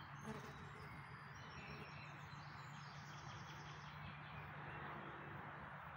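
Faint birdsong: a few high chirps and a quick rapid trill in the first half, over a steady low hiss and hum of outdoor background.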